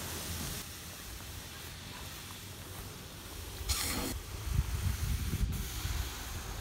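Outdoor ambience with wind buffeting the microphone in an uneven low rumble that swells about four and a half seconds in, and a short hiss about four seconds in.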